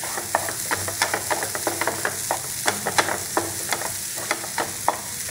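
Flat spatula scraping and knocking through thick besan halwa in a nonstick frying pan as it is stirred and roasted over a low flame, giving quick irregular clicks and scrapes, about four a second. A steady sizzle runs underneath.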